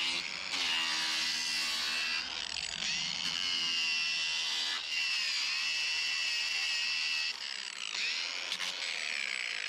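Cordless angle grinder with a sanding disc running under load against a peeled cedar log, a steady high whine whose pitch dips briefly about two and five seconds in.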